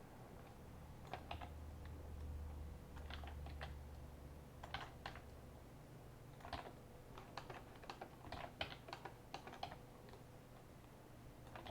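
Faint computer keyboard and mouse clicks in irregular clusters, from keys and a mouse being worked at a desk, over a low steady hum.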